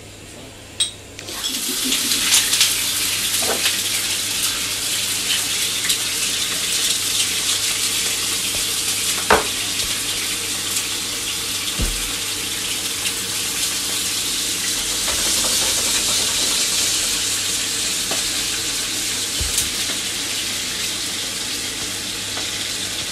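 Pork chops frying in a pan, a steady loud sizzle with scattered crackles that starts abruptly about a second in.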